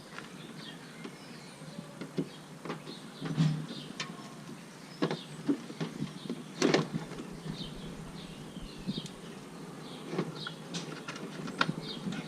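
Scattered clicks and knocks of a plastic bumper cover and its parts being handled during reassembly, the loudest knock about seven seconds in. Faint short chirps sound in the background.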